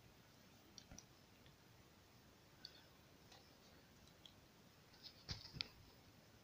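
Near silence with faint scattered clicks, a few sharper ones close together about five seconds in.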